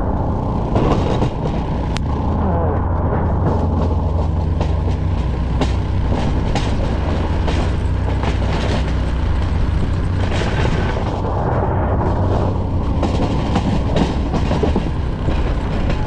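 Plow truck running steadily with a strong low rumble and hum, with scattered knocks and rattles through it.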